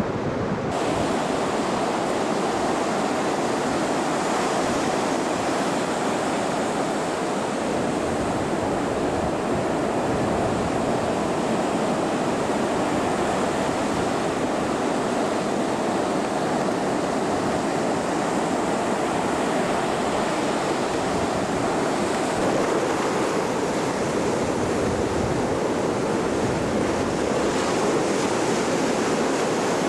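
Ocean surf breaking on the beach, with wind buffeting the microphone: a steady, unbroken wash of noise.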